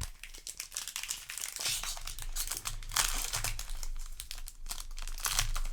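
Foil wrapper of a Magic: The Gathering booster pack crinkling and crackling as it is handled and torn open by hand, densest around the middle.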